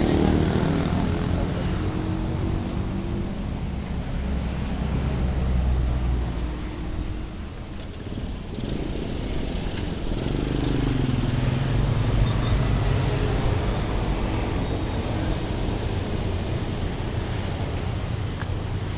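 Road traffic: motorbike and car engines passing close by over a steady traffic hum, louder near the start and again from about ten seconds in.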